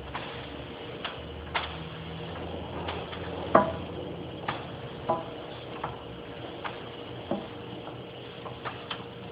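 Irregular clicks and knocks from a Peugeot 206, about a dozen spaced a half-second to a second apart, the loudest clunk about three and a half seconds in, over a low steady hum. It is the strange noise the owner links to the steering and suspension.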